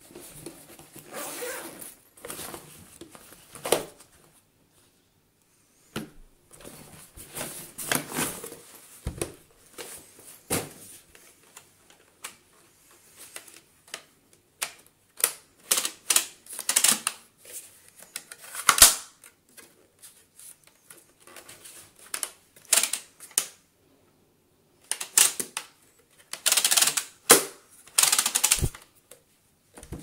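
Irregular plastic clicks, snaps and rustling as a handheld car vacuum cleaner's parts are handled and fitted together; the cleaner's motor is not running. The loudest snap comes about two-thirds of the way through.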